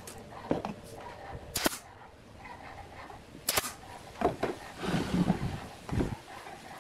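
A string of short, irregular knocks and clicks of workshop handling on a workbench: two crisp clicks, then a busier cluster of knocks near the end.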